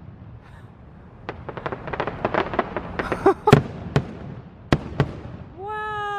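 Aerial fireworks display: a fast run of crackling pops, then several loud bangs of bursting shells from about three and a half seconds in. Near the end a long falling tone sets in.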